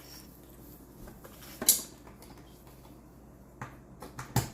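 A few short handling noises: a brief scrape about one and a half seconds in, then two sharp clicks near the end.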